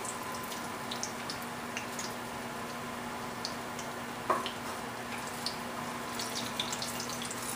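Hot canola oil crackling softly with scattered small pops as fried onion slices are lifted out of it with a spoon. One clink of the spoon against the pot about four seconds in, over a steady low hum.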